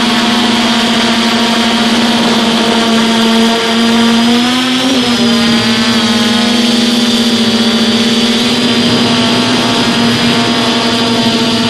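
DJI F450 quadcopter's brushless motors and propellers buzzing loudly in flight, heard from the phone riding on the frame. The pitch wavers briefly about four to five seconds in as the motors change speed, then settles back to a steady hum.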